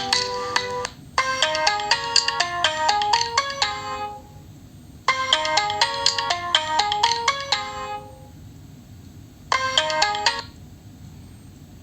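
Preset ringtone playing from a Nokia 3.4 smartphone's speaker: a bright melody of quick pitched notes in phrases separated by short pauses, the last phrase breaking off after about a second.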